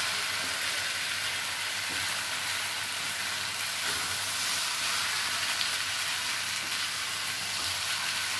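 Sabudana khichdi frying in a nonstick pan while it is stirred with a wooden spatula: a steady sizzling hiss.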